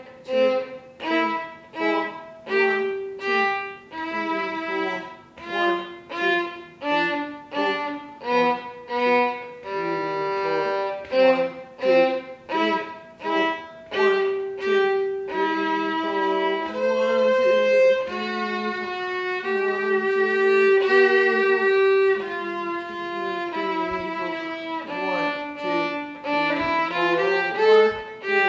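Solo violin played with a bow: a melody of separate notes, about two a second at first, then longer held notes in the middle and a quick rising run near the end.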